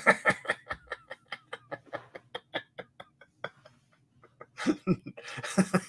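Men laughing: a long run of short, rhythmic laughs, about five a second, that taper off over about three seconds, then a fresh burst of laughter near the end.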